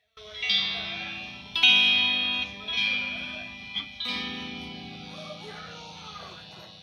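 Electric guitar played through a Mooer PL6 that has just had its VTL5C optocoupler replaced, the signal now coming through its output again. Four chords are strummed a little over a second apart, the last one left to ring and fade.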